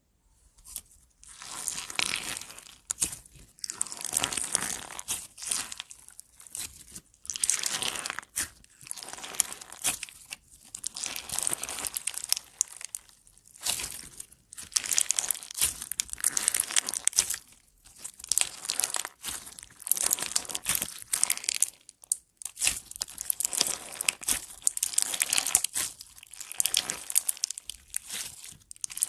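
Slime being squeezed and pressed by hand, giving repeated crackly, crunchy bursts of noise, each about a second long, with short pauses between them.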